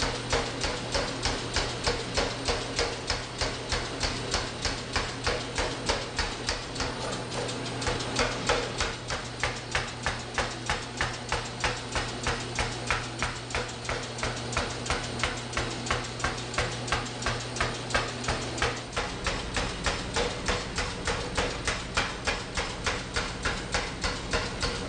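Power hammer pounding hot steel tube in a fast, steady rhythm of blows, about two to three a second, drawing the tube down, with the machine's motor humming under it. The low hum changes a little near the end.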